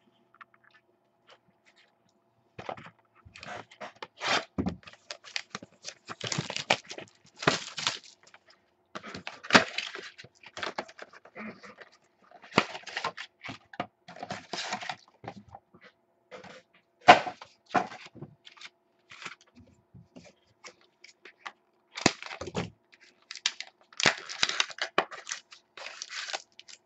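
Trading-card packs being torn open and their foil-and-plastic wrappers crinkled, with cards and packaging handled in irregular rustling bursts and sharp clicks. It starts after about two and a half seconds of quiet.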